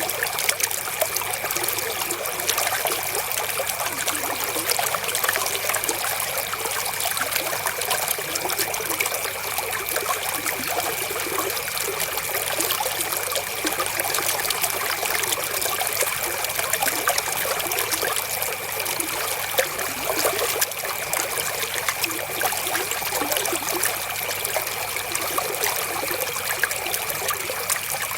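River water flowing steadily in a continuous trickling, splashing rush.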